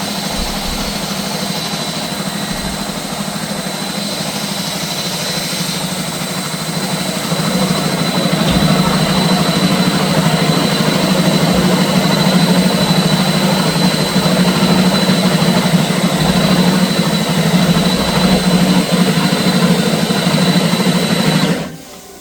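Gold Snake GS6/30 flex-shaft drain cleaning machine running steadily, spinning its shaft to descale a sewer pipe; it gets louder about a third of the way in and cuts off suddenly near the end.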